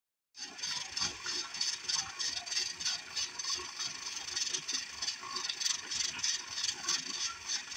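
Presto pressure canner's weight jiggling and rattling on the vent pipe in quick irregular clicks over hissing steam, the sign that the canner has come up to 15 pounds of pressure.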